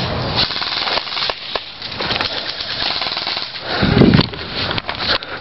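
Airsoft gunfire: rapid clattering shots and clicks, with a heavy low thump about four seconds in.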